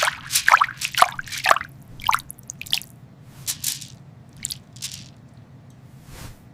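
A run of wet drips and squelches. About a dozen short sounds, each dropping in pitch, come close together for the first two seconds and then more sparsely, over a low steady background hum.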